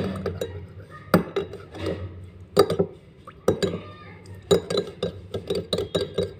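Steel teaspoon stirring a liquid in a small glass bowl, clinking against the glass: a few single clinks about a second apart, then quicker clinking near the end.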